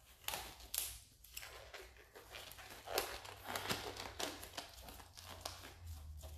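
Blue nitrile gloves being pulled on and worked over the hands: faint, irregular crinkling and rustling with short light clicks. A low steady hum comes in near the end.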